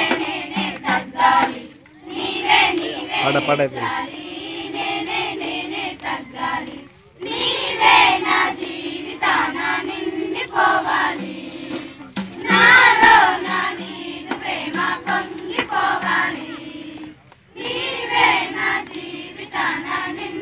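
A crowd of women and children singing a Christian hymn together, line by line with brief pauses between phrases.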